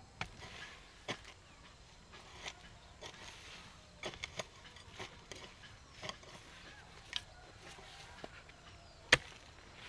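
A series of irregular light knocks and clicks, roughly one every half second to second, with one much louder sharp click near the end.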